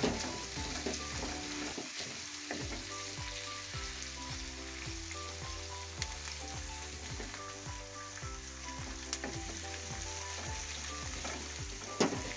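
Cabbage, green chillies and capsicum stir-frying in hot oil in a kadai on a high flame, sizzling steadily, with the occasional clack and scrape of a spatula tossing them.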